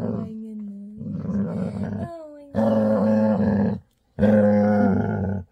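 Yellow Labrador retriever giving a loud, drawn-out happy growl while having its chin rubbed: a grumbling, pitched vocalization in three long bouts with short pauses between, the dog's sign of contentment rather than aggression.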